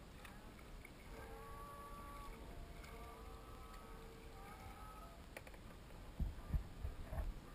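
Kayak gliding on a calm river, quiet water around the hull, then a few low thumps about six seconds in as the paddle is swung into a stroke.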